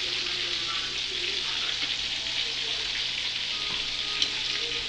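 Chicken pieces frying in hot grease in a pan, a steady sizzling hiss, with a single short click about four seconds in.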